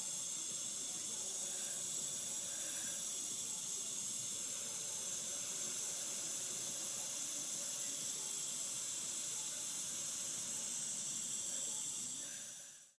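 Steady hiss from a homemade smoke generator: a heated nichrome wire coil wound round a lamp wick, smoking.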